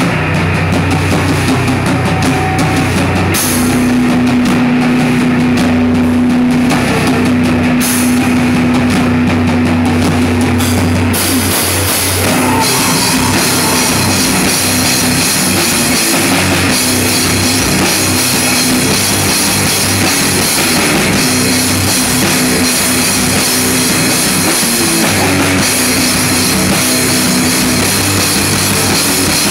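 Rock band playing loud, heavy music: drum kit with cymbals, electric bass and guitar, with long held low notes. About eleven seconds in the sound turns fuller and brighter.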